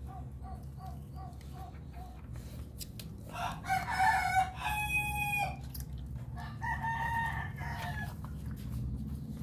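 A rooster crows loudly about three seconds in, a long call that rises and then holds one steady note, and a shorter crow follows about a second later. Faint rapid squeaks, about three a second, come before it in the first two seconds.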